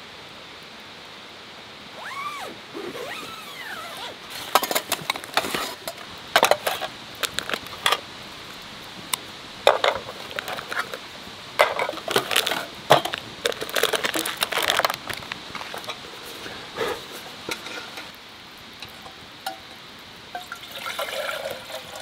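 Metal clinks and rattles of a camping mess tin being opened and unpacked, many short sharp knocks spread over several seconds, over a steady hiss. Near the end water starts pouring.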